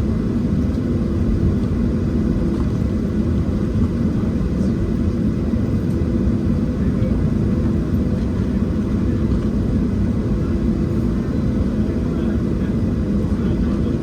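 Steady, loud rumble of a Boeing 737-700 inside the passenger cabin: its CFM56-7B engines and the airflow over the fuselage, heard from a window seat.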